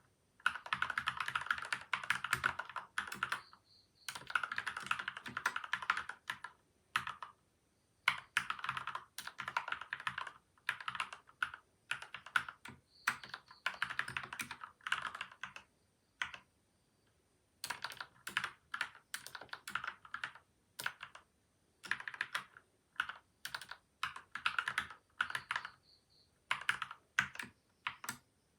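Typing on a PCL87 mechanical keyboard with lubed linear switches (Gateron Milky White and Outemu Yellow), softened by tape and foam mods. The keystrokes come in quick runs of a second or few, broken by short pauses.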